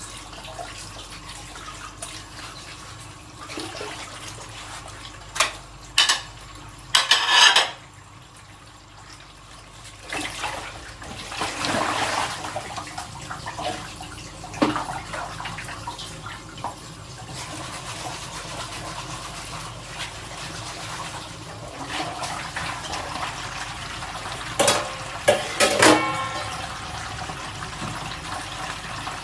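Dishes being washed at a sink: tap water running steadily, with dishes and utensils clinking and knocking now and then. A few sharp clatters come about a quarter of the way in and again near the end, one of them ringing briefly.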